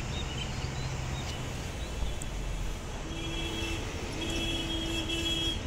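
Tipper truck's engine running as the raised bed dumps its load of sand out through the open tailgate. From about three seconds in, a steady high tone joins it, sounding in three long stretches.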